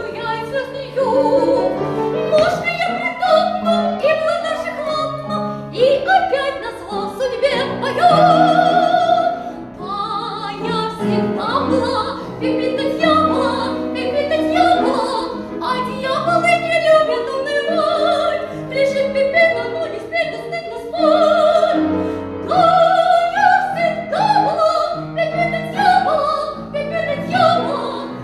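Music: a woman singing in a trained, operatic style, with long vibrato notes, over instrumental accompaniment.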